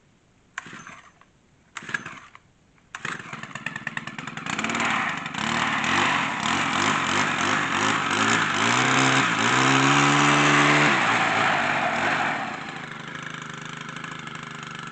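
Cold start of a Stihl FS 110 brush trimmer's small four-stroke engine, choke set. Two short bursts come first, then the engine catches about three seconds in and runs. It revs up and gets louder, then settles to a lower, steadier running speed near the end.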